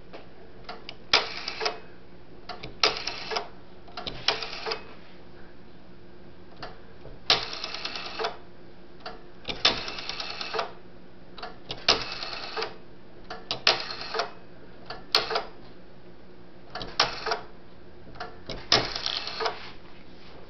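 Rotary dial of a 1960 Automatic Electric three-slot pay phone being dialled, ten digits in all. Each digit is a click as the dial is pulled round and let go, then the clicking, whirring return of the dial lasting under a second, with a second or two between digits.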